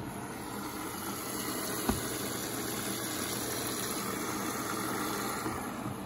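Water rushing in through the detergent dispenser drawer of a Samsung front-load washing machine as its inlet valve fills the drum: a steady hiss that swells slightly and eases off near the end. A single sharp knock about two seconds in.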